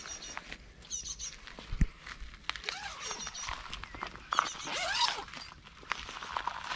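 Outdoor ambience of birds chirping in short, repeated high phrases, with a single dull thump about two seconds in.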